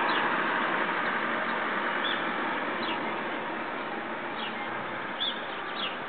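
Steady hiss of road traffic that slowly eases off, with about six short, high, falling chirps of small birds scattered over it.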